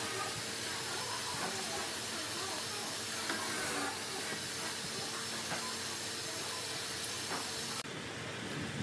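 A steady, loud hiss like rushing air that starts and stops abruptly, with a few light clicks and knocks as steel pipe clamps are handled on a wooden frame.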